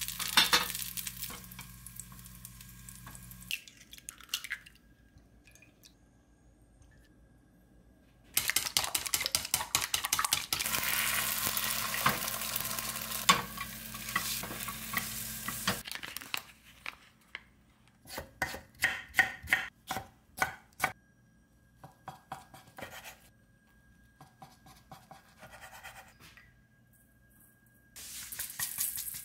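Food sizzling in a rectangular nonstick egg pan on a gas stove, loudest from about 8 to 16 seconds in while an egg omelette cooks and is rolled with chopsticks. Then a run of light clicks and knocks, and near the end a short rattle of sesame seeds shaken from a plastic shaker.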